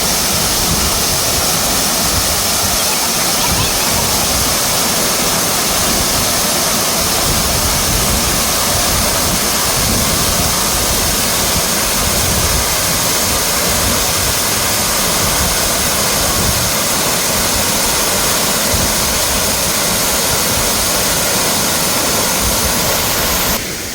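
A waterfall pouring steadily: a loud, even rush of falling water that drops away abruptly near the end.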